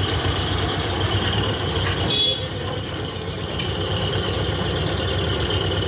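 Heavy diesel engine running steadily with a low, pulsing rumble. About two seconds in there is a brief high-pitched squeal or toot.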